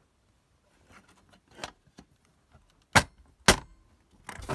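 Sharp plastic and metal clicks and knocks as a laptop's optical drive is worked loose from its bay. Soft taps come first, then two loud clicks about half a second apart around three seconds in, and a quick cluster of clicks near the end.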